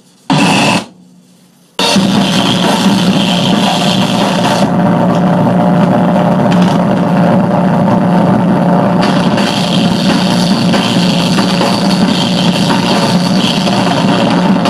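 Harsh noise music: a dense, loud wash of distorted noise that bursts in briefly just after the start, cuts out for about a second, then returns at full level and runs on unbroken.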